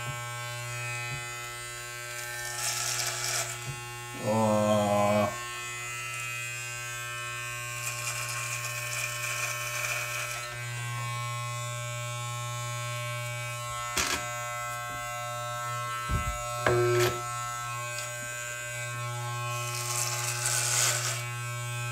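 Corded electric hair clippers running with a steady low buzz, with short bursts of rasping hiss as the blades cut through beard hair. A couple of sharp clicks come in the second half.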